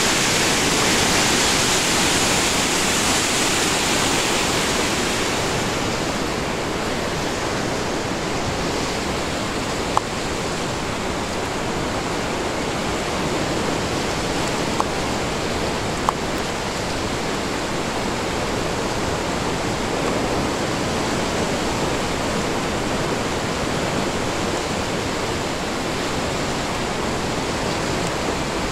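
Athabasca River whitewater rushing loudly and steadily, hissier and a little louder for the first five seconds or so, then settling to an even rush. A few short sharp clicks stand out around the middle.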